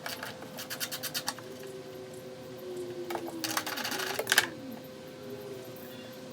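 Hand ratchet wrench clicking in quick runs while loosening the crossbar bolts. One run comes in the first second, and a denser run about three and a half seconds in ends in one sharp metallic click.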